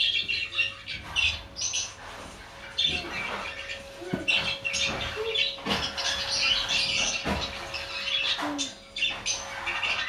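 Budgerigars chattering: a continuous run of short, scratchy warbles and chirps, with a few sharp clicks mixed in.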